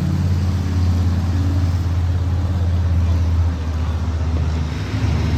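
Monster truck engines running with a deep, steady low note that eases slightly about three and a half seconds in.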